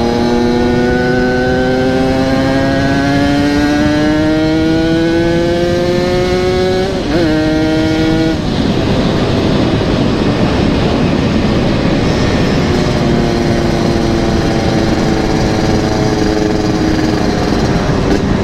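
Yamaha RX-King 135cc single-cylinder two-stroke running through an aftermarket exhaust, its note rising steadily in pitch under acceleration for about seven seconds. The pitch wobbles briefly, then the note is buried under a rushing noise for several seconds before a steady engine note returns.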